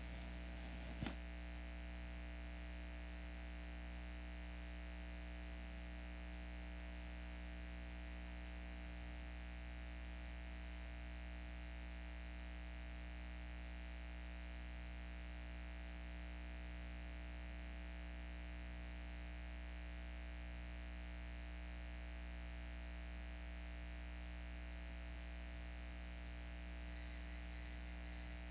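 Steady electrical mains hum in the audio feed, with a single click about a second in.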